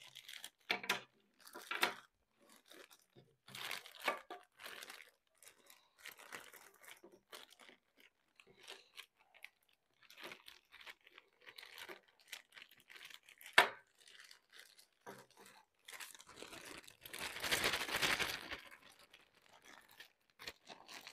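Clear plastic bag crinkling and rustling in short bursts as a mechanic's stethoscope is packed back into it, with one sharp knock about two-thirds of the way through. The loudest crinkling comes near the end.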